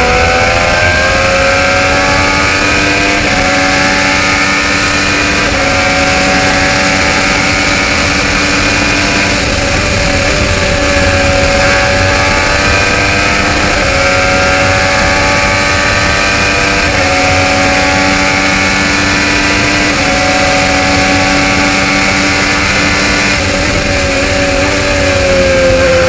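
IndyCar's onboard Chevrolet 2.2-litre twin-turbo V6 running at high, near-steady revs over a lap of the oval, its pitch stepping and gliding slightly up and down and dipping near the end as the car turns in.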